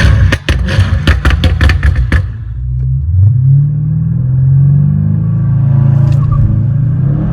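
Tuned twin-turbo V8 performance car doing a launch start: a couple of seconds of sharp crackles, then the engine note climbs steadily as the car accelerates hard.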